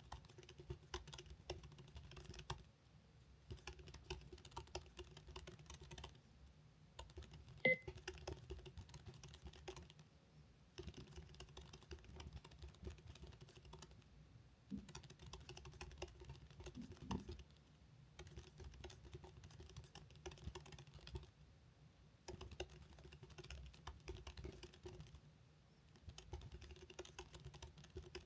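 Very fast touch-typing on a computer keyboard: a dense run of key clicks broken by short pauses every three or four seconds, with one sharper key strike about eight seconds in.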